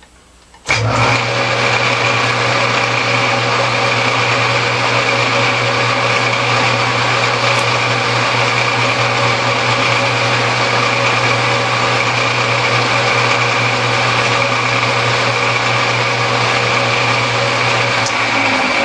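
Metal lathe switched on about a second in, then running steadily, its electric motor and variable V-pulley drive turning the chuck at about 588 rpm with a constant hum and whine.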